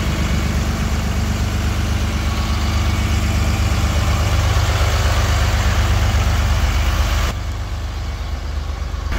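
Truck engine idling steadily close by, a little quieter about seven seconds in.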